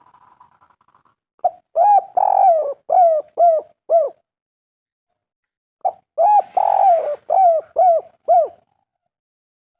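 Spotted dove (derkuku) cooing in the 'kuk 3' call style: two phrases of about six arched coos each, the second coming about a second and a half after the first ends.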